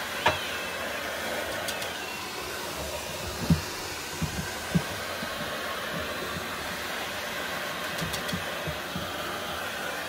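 Vacuum cleaner running with a steady whoosh of suction through its hose and brush nozzle. There are a few low knocks between about three and a half and five seconds in.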